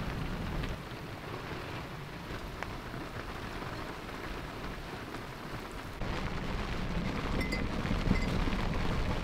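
Heavy rain pelting the water and the boat, with gusty wind rumbling low underneath; it grows louder about six seconds in.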